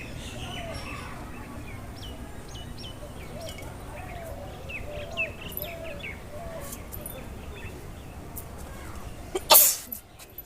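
Birds chirping and tweeting in the background over a low steady outdoor rumble. About nine and a half seconds in comes one loud, sudden sneeze, brought on by tickling the nose with a long blade of grass.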